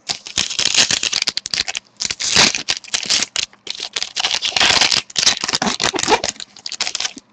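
Foil wrapper of a trading-card pack crinkling and tearing as it is pulled open by hand, in three crackling stretches with short pauses between.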